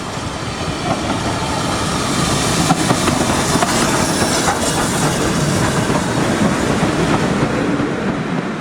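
A railway train running on the track, a steady rushing noise with the clatter of wheels on the rails.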